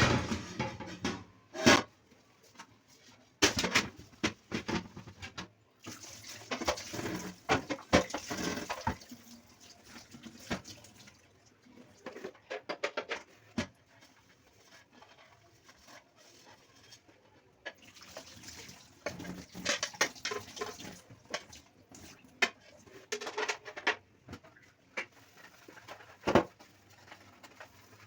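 Washed fridge holders being handled at a kitchen sink: irregular knocks and clatters as the pieces are set down and stood upright, with two stretches of running tap water, one about six seconds in and one near the middle.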